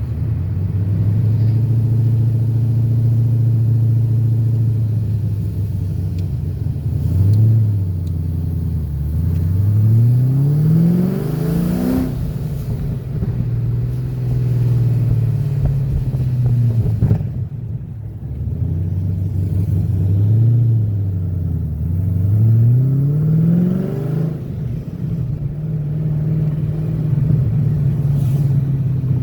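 2004 Pontiac GTO's V8 running through Kooks long-tube headers and a full aftermarket exhaust, with an aftermarket cam. It cruises at a steady low drone, then twice revs up with a rising pitch and drops suddenly at each upshift, about a third of the way in and again near three quarters through; the shifts are made a little over 3000 rpm.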